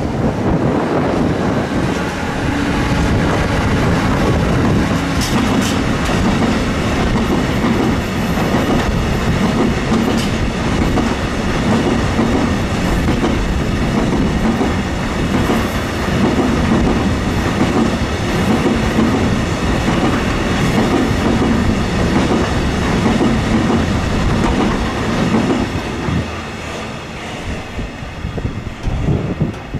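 ÖBB Siemens Vectron electric locomotive and its intermodal container wagons passing close by, the wagon wheels clattering over the rails in a steady, loud run of noise with occasional sharper clicks. The sound drops away over the last few seconds as the train moves off.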